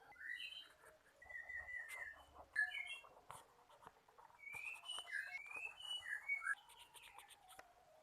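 A bird chirping and whistling in short bouts of quick rising and falling calls, with faint clicks and taps in between.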